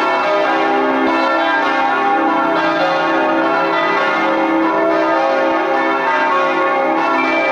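Church bells pealing, several bells ringing together so their tones overlap continuously.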